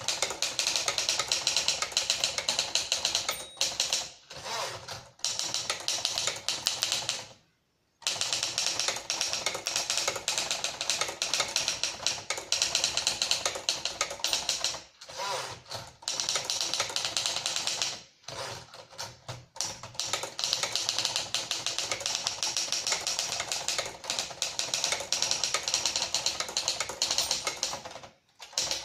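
Keys of a 1956 Remington Travel-Riter manual typewriter clacking in fast runs of typing, broken by a few short pauses.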